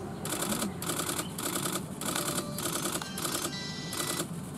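Background music with a steady rhythmic beat of crisp, hissing percussion hits, about two a second.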